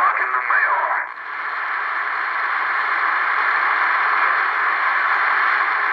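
Cherokee CBS-1000 CB base station receiving: a wavering voice-like transmission cuts off about a second in, and steady static hiss from the empty channel swells back up and holds.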